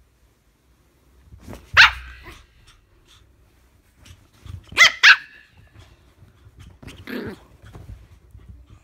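Pomeranian puppy barking in short, sharp barks: one about two seconds in, two in quick succession near the middle, then a lower, rougher growly bark. Faint rustling of bedding between the barks.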